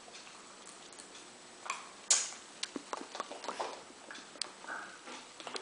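A 10-month-old baby's mouth clicks and smacks: an irregular string of sharp clicks, the loudest about two seconds in.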